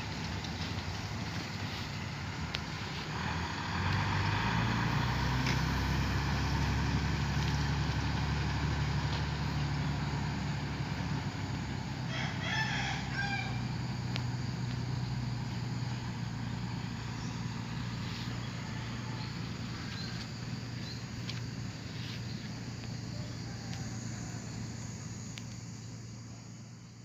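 Diesel engine of a Mercedes-Benz 917 truck running with a low steady hum, growing louder about four seconds in and then slowly fading as the truck moves off. A rooster crows once about twelve seconds in.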